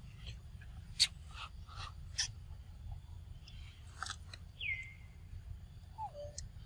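Macaques eating, with scattered sharp crunching clicks and two short falling squeaky calls about two-thirds of the way through, over a steady low rumble.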